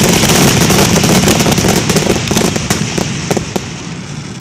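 Aerial fireworks going off in a rapid barrage, many crackling bursts and bangs overlapping. The barrage thins to a few separate bangs past the middle and fades near the end.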